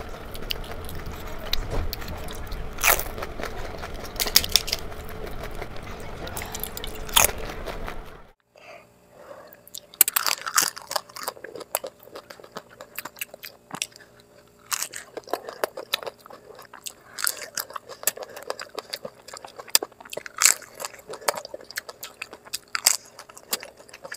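Close-miked crunching and chewing of pani puri (golgappa): crisp fried puri shells cracking between the teeth in sharp, irregular bites. About eight seconds in, the sound drops to a quieter recording of the same crunching.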